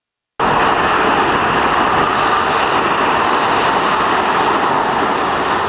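Demolition machinery running steadily, a loud even mechanical noise that starts abruptly about half a second in.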